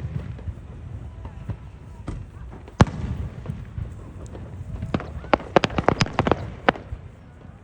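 Fireworks going off: a single sharp bang about three seconds in, then a rapid crackling string of a dozen or so pops a couple of seconds later.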